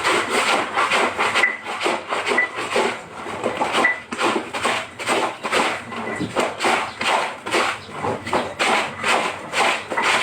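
Clothes being scrubbed by hand, a steady run of scrubbing strokes at about two or three a second.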